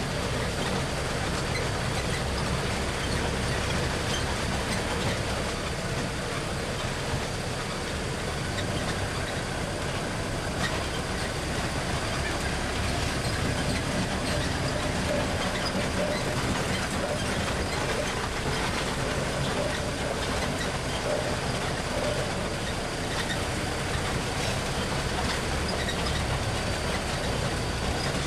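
Open-sided tour tram driving along a dirt track: steady engine and road noise heard from on board.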